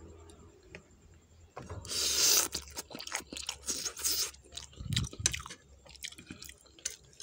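A person eating Indomie instant noodle soup: chewing, with two louder noisy stretches about two and four seconds in, then a run of small clicks.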